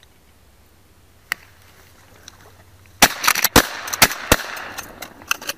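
Shotgun shots fired at ducks overhead: a quick volley of about four loud shots within a second and a half, followed by a few fainter shots.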